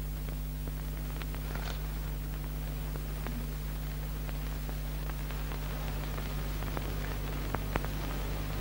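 Steady low electrical hum under an even hiss, with a few faint clicks scattered through.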